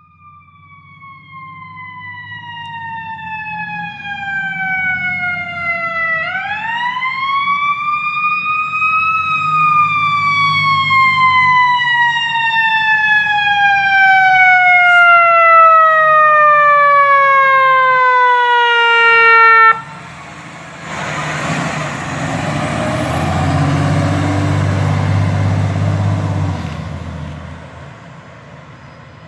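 Fire truck siren on a responding ladder truck. Its pitch slides slowly downward, sweeps back up quickly about six seconds in, then winds down over about ten seconds and cuts off abruptly. The truck's engine rumble and road noise follow loudly, then fade near the end.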